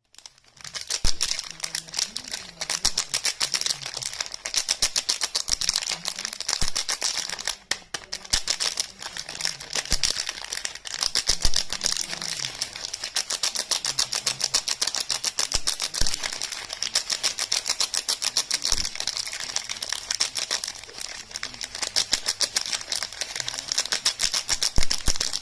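Soap being handled close to the microphone: a fast, continuous, crisp clicking and crackling, with a short break about eight seconds in.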